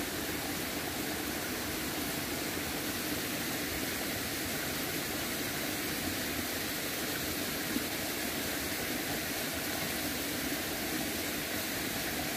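Steady rushing of a flowing stream, an even hiss that holds at the same level throughout.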